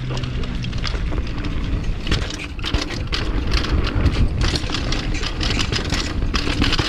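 Downhill mountain bike rattling and clattering over a rough dirt trail, with a constant run of quick, irregular knocks from the tyres and bike, over a heavy low wind rumble on the microphone.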